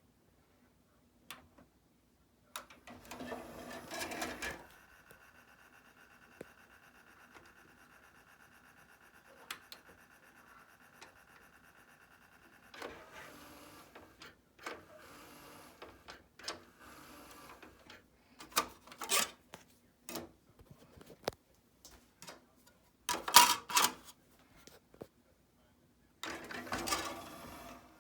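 Mechanism of an Onkyo DX-C200 five-disc CD changer running: a short motor whir, then a steady whine for several seconds, then a string of short whirs, clicks and clunks, the loudest a little past the middle, with one more whir near the end.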